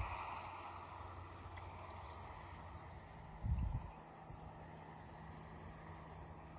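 A steady, high insect trill with short breaks, typical of crickets, over faint wind on the microphone, with low thumps at the start and about three and a half seconds in.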